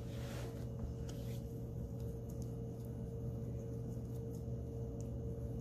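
Quiet room tone with a steady low electrical-sounding hum, a faint soft rustle near the start and a few faint light clicks.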